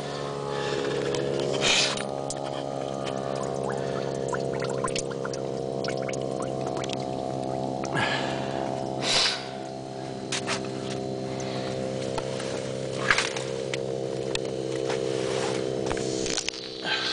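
A steady droning hum holding one pitch, which cuts off near the end, with a few brief rustles and knocks from handling.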